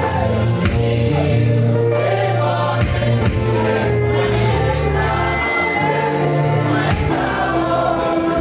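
Gospel worship song: several voices singing together over a bass line, with a steady percussion beat.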